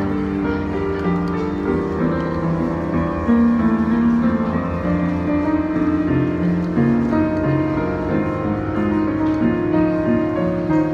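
Piano playing an arrangement of a J-pop song: a melody over chords, many held notes without a break.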